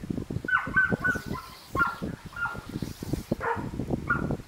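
A collie giving short, high-pitched yips over and over, excited and waiting, over knocking and clattering as a board is fitted into an obedience high-jump stand.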